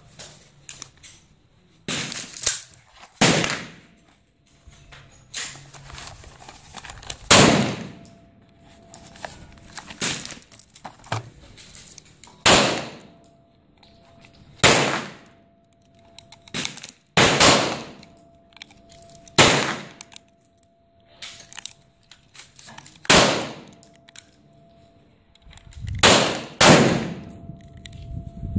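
Suppressed Glock 19 9mm with a Gemtech Tundra silencer firing 147-grain subsonic rounds, slow deliberate shots about one to three seconds apart, about a dozen in all, each a sharp report with a short ringing tail.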